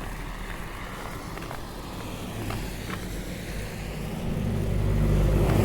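A motor vehicle approaching on the road, its engine and tyre noise growing louder over the last couple of seconds.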